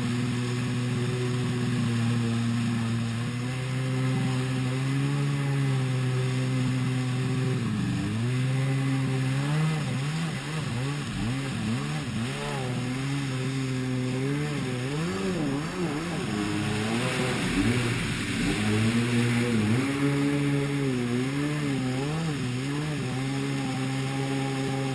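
Yamaha WaveBlaster 701 jet ski's two-stroke twin engine running at speed. Its pitch holds steady at first, then wavers rapidly up and down through the middle while crossing wake. A rushing hiss of water and wind builds up about two-thirds of the way through.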